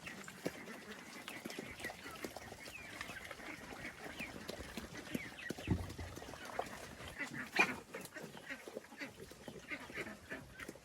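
Farm animals: a busy run of short, high chirping calls over many small clicks and knocks.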